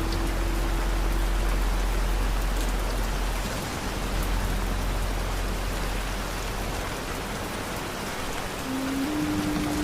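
Steady rain falling, an even hiss of drops, with a deep low rumble underneath in the first few seconds. A soft held musical note sounds at the start and fades, and another comes in near the end.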